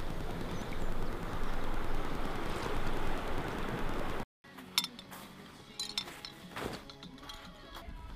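Steady noise of wind and surf on a pebble shore for about four seconds, cut off suddenly. Then a quieter stretch with a few sharp clinks and knocks over faint music.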